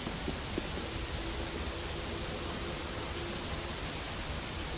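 Video game background ambience: a steady, even rushing noise with a faint low hum, and a few soft clicks in the first second.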